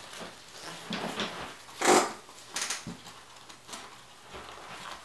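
Nylon plate carrier and its webbing being handled while clips are fitted: fabric rustling and scraping with small clicks, and one louder brief scrape about two seconds in.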